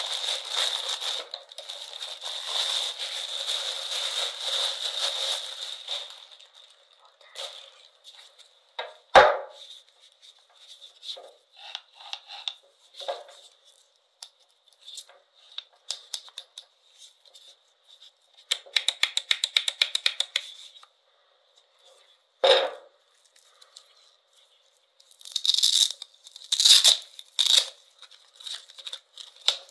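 Plastic bag wrapping crinkling and rustling as an angle grinder is pulled out of it by hand, for the first six seconds or so. Then scattered clicks and a couple of knocks as the tool is handled, a quick run of ticks around the middle, and several short ripping sounds near the end.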